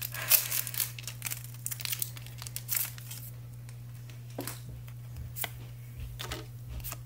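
Foil wrapper of a Pokémon card booster pack being torn open and crinkled, with dense crackling for about three seconds. After that come a few light clicks and rustles as the cards are pulled out and handled.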